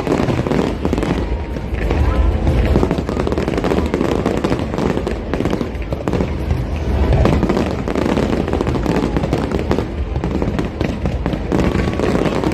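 Aerial fireworks going off continuously: dense crackling and popping over low booms, with no break.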